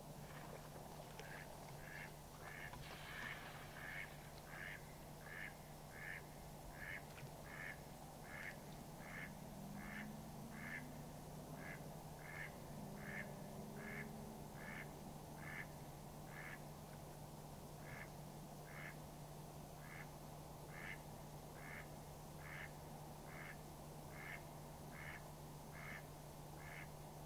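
Mallard quacking faintly in a steady, regular series of single quacks, about one every two-thirds of a second, with a brief pause midway.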